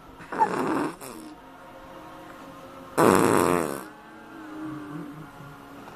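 Raspberries, lips buzzed against a baby's cheek: a short buzz about half a second in and a louder, longer one about three seconds in.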